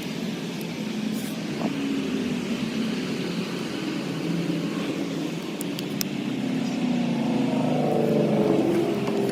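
A vehicle engine running with a steady drone that rises in pitch near the end, with a few light clicks.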